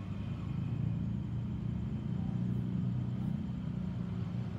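Steady low jet rumble of a Boeing 737-800's CFM56-7B engines as the airliner flies over, growing slightly louder about a second in.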